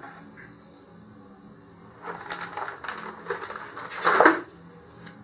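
Large cardboard rocket body tubes being handled and shifted on a cutting mat: quiet at first, then about two seconds of rubbing and scraping, loudest near the end.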